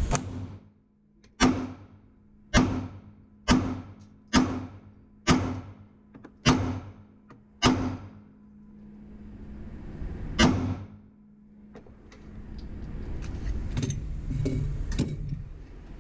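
Handgun shots at a range: seven shots fired about a second apart, a pause of nearly three seconds, then one more shot. Small metallic clicks and rattles of gun handling follow near the end.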